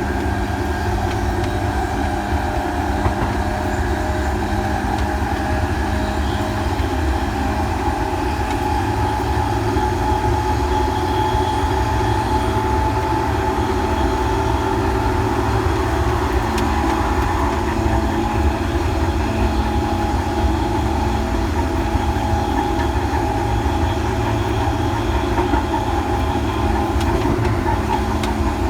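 Electric train heard from on board: a steady rumble with even humming tones that hold one pitch, with no rising or falling motor whine.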